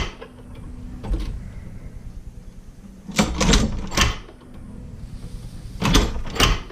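A few sharp clunks and knocks over a low steady hum: one about a second in, a cluster about three to four seconds in, and two more near the end.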